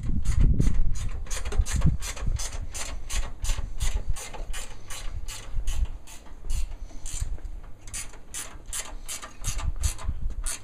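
Ratchet wrench clicking in a steady run of about three clicks a second as it tightens a 6mm hex head screw and lock nut.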